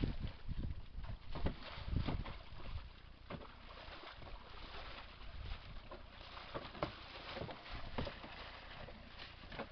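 A horse pawing in a rubber water trough with a front hoof, making irregular splashes and sloshes about once a second.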